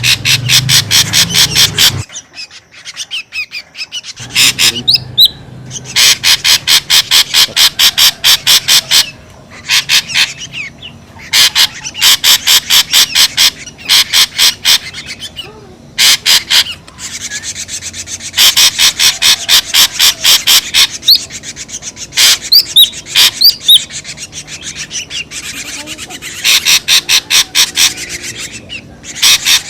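Ashy drongo calls from a bird-trapping lure recording: fast runs of loud repeated notes, about five or six a second, in bouts of a few seconds with short pauses between, and now and then a thin whistled note.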